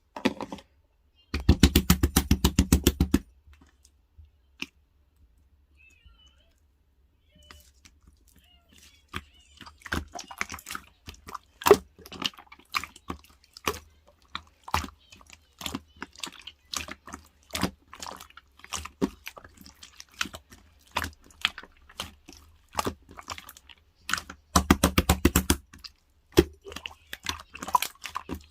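A small pet chewing crunchy food: irregular crisp crunching clicks that become steady about a third of the way in. Twice, once near the start and once near the end, there is a short run of rapid even pulses.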